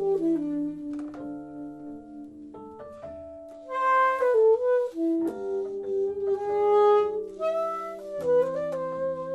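Two saxophones improvising a jazz duet, two melodic lines overlapping, moving between held notes and quicker passages.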